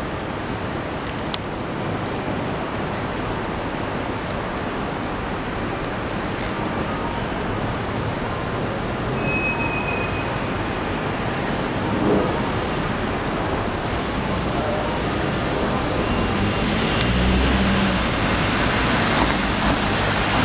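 City street traffic noise: a steady wash of passing cars and engines, growing louder near the end as vehicles pass closer.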